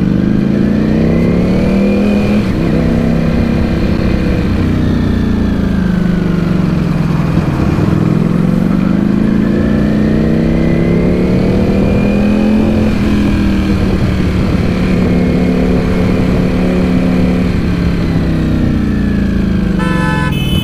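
Motorcycle engine heard from the rider's seat, rising in pitch as it accelerates and falling away as it slows, twice over. A brief horn beep sounds near the end.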